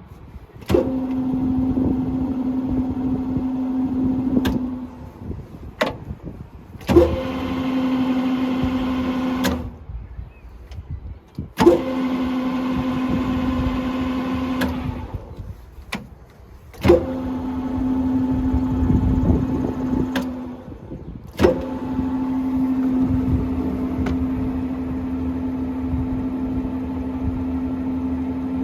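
Colchester Student MK1 metal lathe started and stopped about five times: each start opens with a sharp click, followed by a steady drive hum that runs a few seconds before cutting off. The last run carries on to the end.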